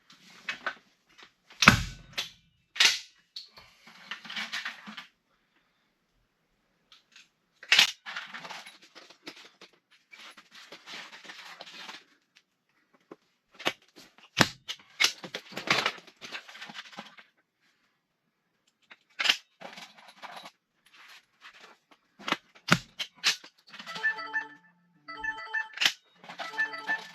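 Ramset powder-actuated tool firing 2½-inch pins through a wooden bottom plate into the concrete floor: several sharp shots spread out, with handling noise between them. Near the end a phone ringtone starts and repeats.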